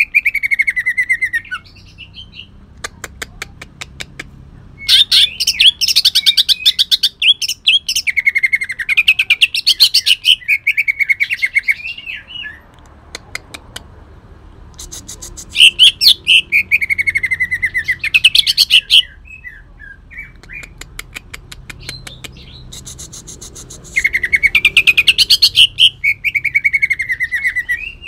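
Green leafbird (cucak ijo) singing in loud runs of rapid, harsh staccato notes. Each run slides down into a falling chirp, and there are four main runs with short gaps of scattered single ticks. This is the harsh 'tembakan' burst style, filled in with long-tailed shrike (cendet) mimicry.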